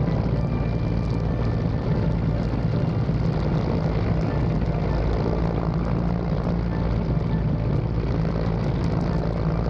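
Military transport helicopter's rotors and turbine engines in a steady, loud drone while hovering low, heard close by.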